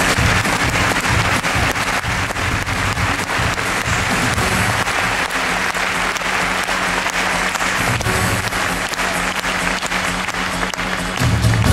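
Audience applauding over the act's loud background music. The music's low beat drops back in the middle and comes back in strongly near the end.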